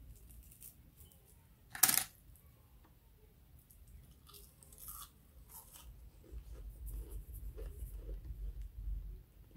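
Falafel being pulled apart by hand and eaten close to the microphone: one sharp crack about two seconds in, scattered small crackles, then chewing with small mouth clicks over a low rumble near the end.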